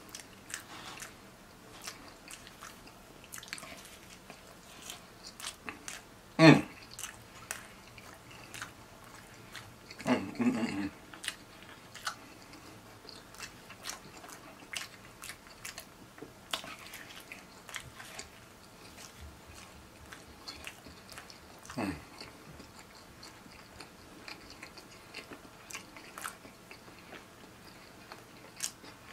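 Close-up chewing of a slice of Domino's double pepperoni, double cheese pizza: steady wet mouth clicks and smacks, with a few louder bites or mouth sounds, the loudest about six and a half seconds in.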